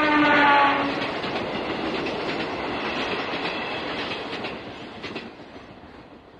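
Train passing a station: its horn sounds and fades out about a second in, then the rumble and clickety-clack of the wheels as the cars go by, dying away near the end.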